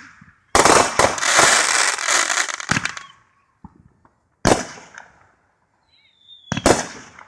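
Fireworks going off: a rapid, dense string of crackling bangs lasting about two and a half seconds, then single sharp bangs a couple of seconds apart, with a brief high whistle just before the last pair.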